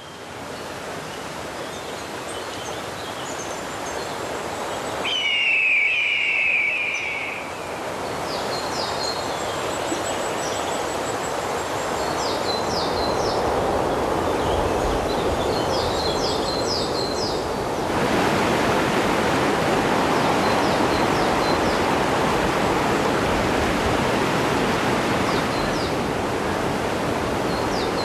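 Outdoor nature ambience: a steady rushing noise that steps up louder about eighteen seconds in. Small birds chirp in quick runs of short descending notes, and a loud buzz lasting about two seconds comes some five seconds in.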